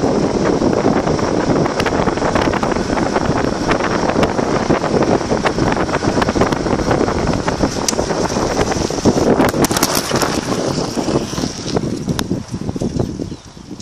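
Wind rushing over the microphone of a camera riding on a moving two-wheeler along a dirt road, with small rattles and knocks from the bumpy surface. The noise eases off near the end.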